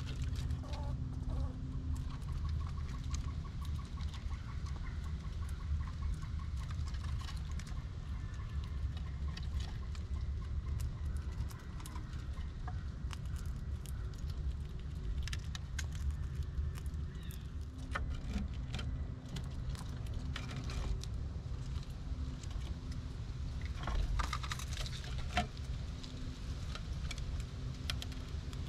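Gray squirrels scrabbling on wooden table boards and at a seed basket: scattered light clicks and patters of claws and handled seeds, in two thicker spells about halfway through and near the end. Underneath is a steady low rumble.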